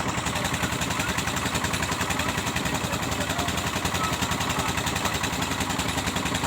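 Overloaded DJ loudspeaker system blasting heavily distorted bass at a street celebration, heard as a dense, rapid pounding rattle with no let-up.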